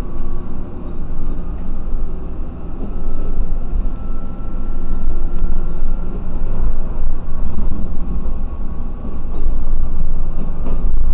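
TH2100 diesel railcar's engine running under power as the train pulls away, heard from inside the cab, with a steady low rumble that grows louder from about six seconds in.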